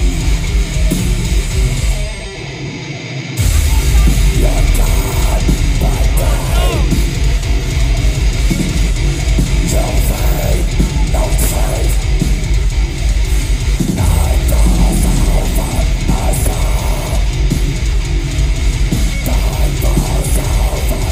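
Metalcore band playing live, heard from the crowd: heavily distorted electric guitars, a drum kit and vocals. About two seconds in the band cuts to a quieter break for about a second and a half, then the full band crashes back in.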